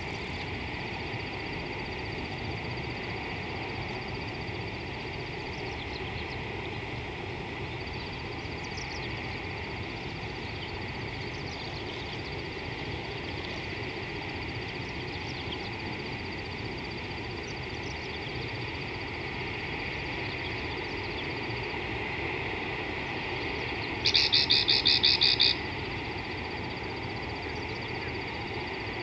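Outdoor bush ambience: a steady background noise with a thin, steady high tone and scattered faint bird chirps. About 24 seconds in comes a loud, rapid run of about eight sharp high notes lasting a second and a half.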